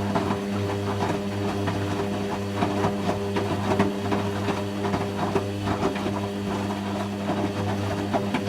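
Hoover Quattro System Power Jet Easylogic AE130 washing machine spinning: a steady motor hum with a constant dense rattle and clicking from the drum.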